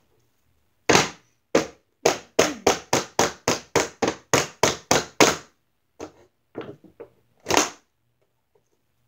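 A fast run of sharp smacks on a hard clear-plastic doll box, about three a second for several seconds, then a few fainter knocks and one last loud smack, as the box is beaten to get it open.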